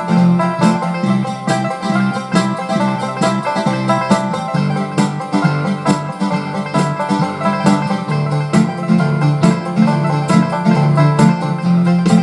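Instrumental country track with a bluegrass flair: banjo, twelve-string guitar and mandolin playing over bass and drums with a steady beat.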